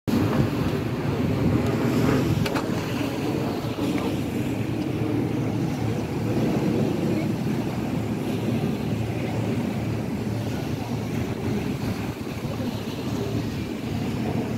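Steady riverside ambience: a continuous low rumble of wind buffeting the microphone mixed with the drone of river boat traffic, with a couple of faint ticks a few seconds in.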